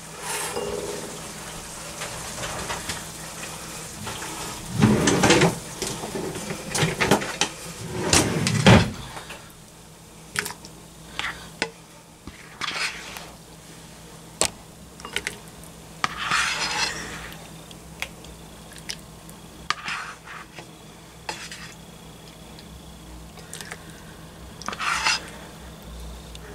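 A utensil scraping and clinking against a skillet and a ceramic bowl as stew is spooned from the pan into the bowl. The scraping is heaviest for a few seconds about five seconds in, then comes as scattered short clinks.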